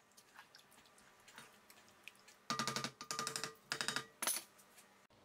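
Wooden spoon stirring and scraping thick sauce in an enamelled cast-iron pot: faint ticks at first, then four short rattling strokes that ring a little, in the second half.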